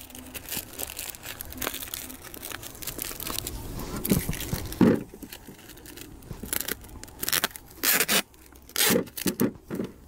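Paper crinkling and rustling as a bundle of apple scion sticks is wrapped and taped, with several short tearing sounds in the second half.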